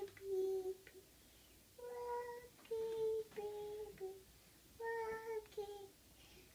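Young child singing a lullaby without clear words: three short phrases of a few held notes, each stepping down in pitch at its end.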